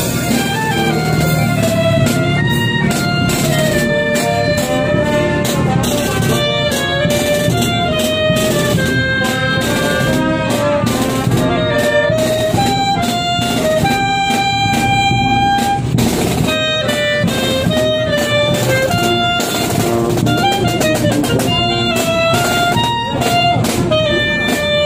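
Music with brass instruments playing a melody over drums.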